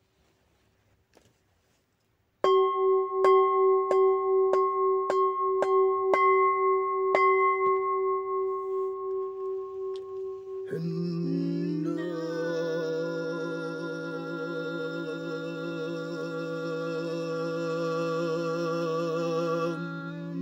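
A bowl bell struck about eight times in quick succession, its clear ringing tone lingering and slowly fading. About ten seconds in, a steady humming drone of several held pitches takes over.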